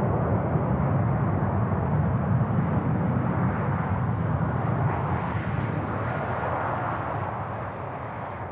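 Jet noise of an Airbus A330-300 airliner passing close on its landing: a loud, deep rumble that fades over the last couple of seconds.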